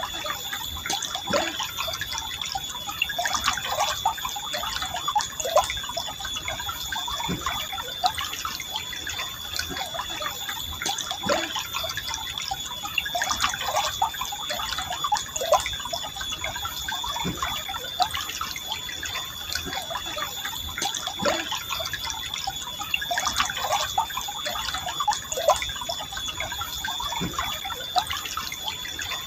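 Forest river flowing gently: a steady rush of water with frequent small gurgles and drips.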